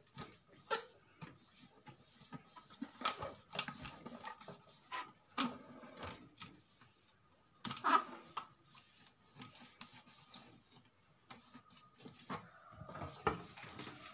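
Hands rubbing and wiping the plastic body of an electric blender's motor base, with irregular scrapes and light knocks, the loudest about halfway through.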